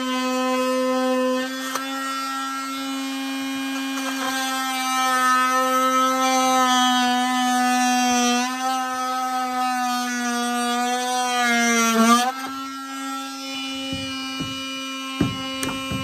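Oscillating multi-tool cutting through PVC drain pipe: a steady buzzing whine that sags in pitch about twelve seconds in and then drops quieter. A few knocks come near the end.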